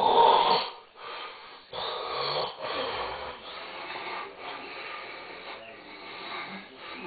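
A person snoring in an exaggerated way: one loud, rough snore right at the start, then a string of quieter rasping breaths and snores.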